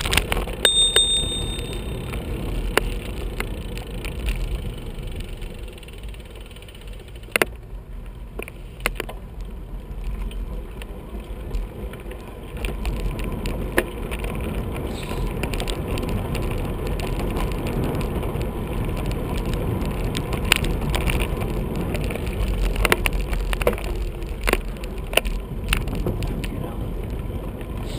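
Bicycle riding along a tarmac path: a steady rumble of wind on the microphone and tyre noise, eased off for a few seconds in the first half, with occasional sharp clicks and knocks.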